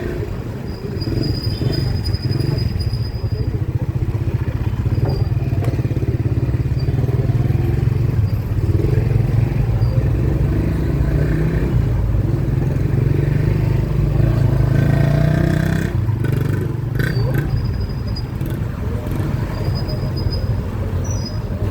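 Motor vehicle engine and road noise: a steady low rumble that swells and then eases off about fifteen seconds in, with a few sharp clicks soon after.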